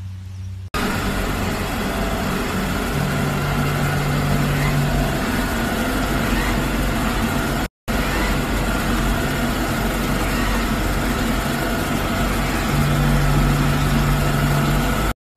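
Robot vacuum cleaner running with a loud, steady machine noise of its fan and brushes as it pushes against a cat. A deeper hum comes in twice.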